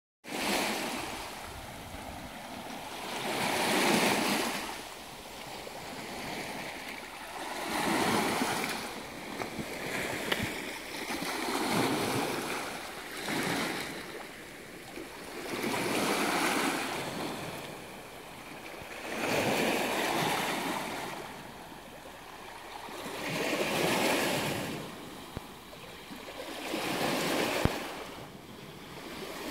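Small Black Sea waves breaking and washing over a pebble shoreline, the surf rising and falling about every four seconds.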